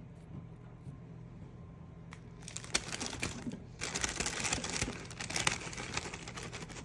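Small gold potatoes tumbling out of a crinkling plastic mesh bag and knocking into a slow cooker on top of a raw beef roast, starting about two seconds in as a rapid clatter of small knocks and bag rustle.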